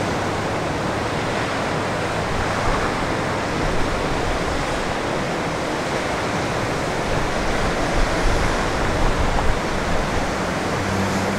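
Ocean surf breaking and washing up on a sandy beach: a steady rushing noise.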